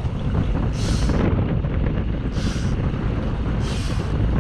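Wind buffeting the microphone over the steady low rumble of a fishing boat on open water. Short hissing bursts come about every one and a half seconds.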